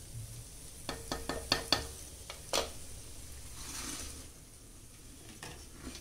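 Onions sizzling in oil in a clay pot, stirred with a metal spoon that knocks sharply against the pot about six times in quick succession about a second in, then once more. A short rustle and two small knocks follow near the end.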